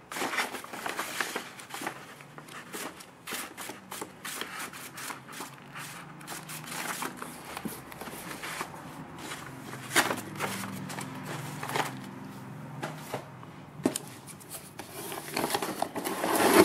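Paper rustling and flapping as a stack of Photofact service folders is handled and leafed through in a cardboard box, with sharper flicks and taps now and then and a louder flurry of riffled pages near the end.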